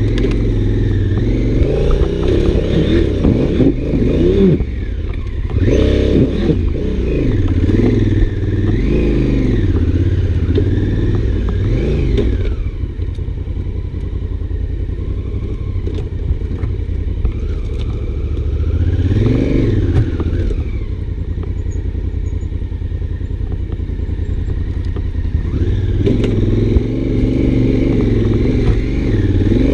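Honda Africa Twin's parallel-twin engine being ridden off-road, its revs rising and falling again and again with the throttle. It eases to a quieter stretch in the middle before picking up again near the end.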